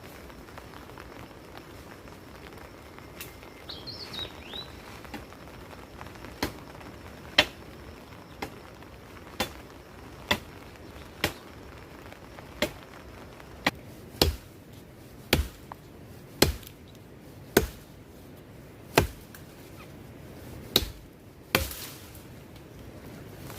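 Repeated chopping strikes on wood, about one a second for some fifteen blows, landing heavier in the second half.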